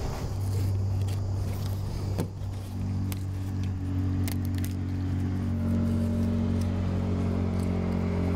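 An engine running steadily in the background, a low hum that sets in about half a second in, with a few sharp light clicks of a knife working on a cutting board.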